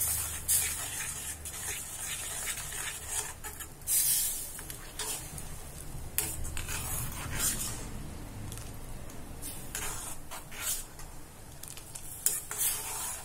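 Steel ladle stirring a thin gram-flour and potato gravy in a stainless steel kadai, with irregular scrapes and clinks against the pan, loudest about four seconds in. The gravy is stirred without stopping while the gram flour cooks, so that it doesn't catch on the bottom.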